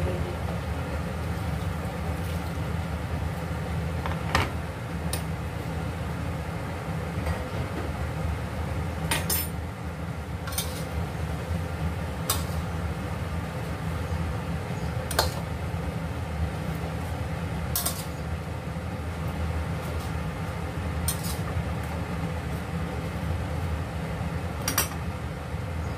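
Cookware clinking: a glass lid and utensils knocking against a stainless steel pan of Chinese cabbage, with about ten sharp clinks spread through, over a steady low rumble.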